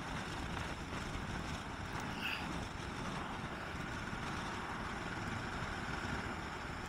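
Steady riding noise from a motorcycle on the move: a continuous rush of wind and road noise with the engine running underneath, picked up by a helmet-mounted microphone.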